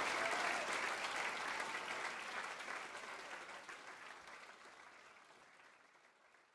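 Audience applauding, fading out steadily until it is gone near the end.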